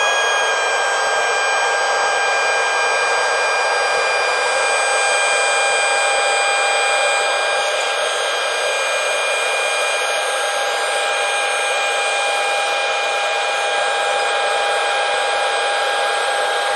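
Airbus A321 jet engines heard inside the passenger cabin during the climb after takeoff: a steady rushing hiss with a high, even whine of several tones over it.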